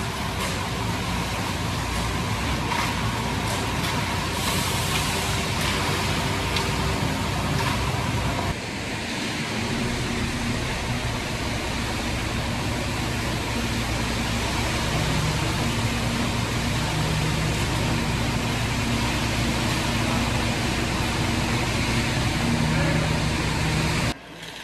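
Ready-mix concrete mixer truck running steadily, its drum turning as it discharges concrete down the chute; the sound shifts abruptly about a third of the way in and cuts off suddenly near the end.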